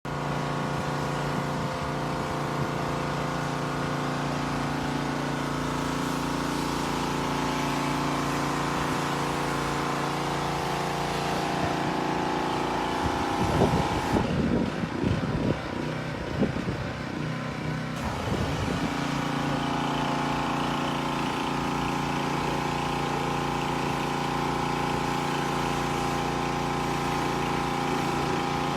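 Pressure washer running with a steady machine drone. A louder, uneven stretch of about six seconds comes in the middle.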